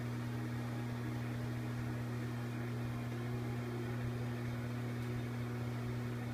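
Steady low electrical hum with a faint even hiss, holding the same level throughout.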